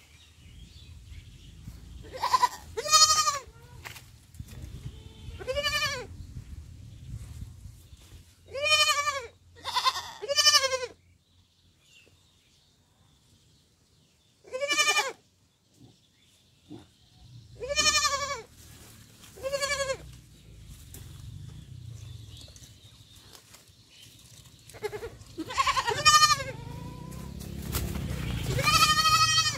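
Baby goat bleating over and over: about ten high-pitched calls a few seconds apart, some in quick pairs, each bending up and back down in pitch.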